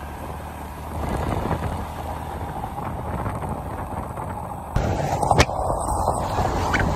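Vehicle on the move: steady engine and road rumble with scattered knocks. The sound changes abruptly and gets louder about two-thirds of the way through.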